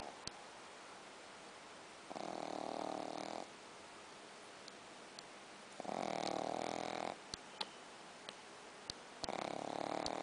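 Shih Tzu dog snoring: three drawn-out snores, each lasting a little over a second and coming about every three and a half seconds, with a few faint ticks between them.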